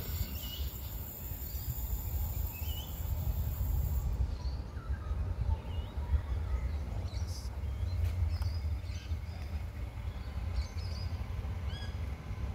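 Scattered bird chirps over a steady low rumble from a distant Adelaide Metro 3000-class diesel railcar approaching the station.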